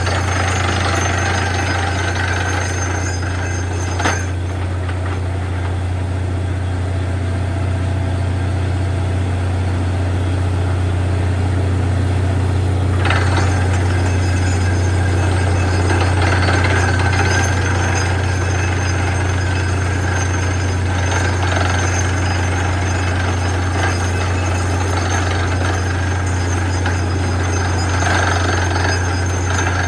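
Borewell drilling rig running steadily with a deep, constant drone and a noisy clatter, two sharp knocks sounding about four and thirteen seconds in.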